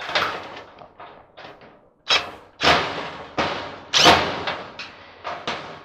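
A series of sharp taps struck on a nut driver to make it bite a stubborn screw: about five strong knocks with brief ringing and lighter taps between, the loudest about four seconds in.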